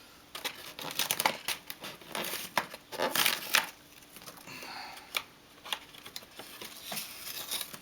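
Packaging being handled: paper and tape crinkling and pulling loose from a foam box as the plane is taken out, in irregular rustles with sharp clicks and scrapes.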